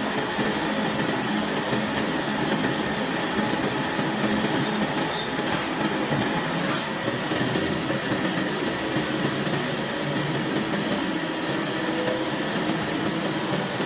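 CNC machine running: a steady, even machining noise with a faint low hum underneath.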